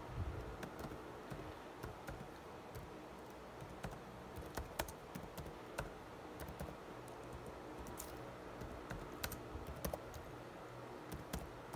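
Typing on a laptop keyboard: irregular, light key clicks.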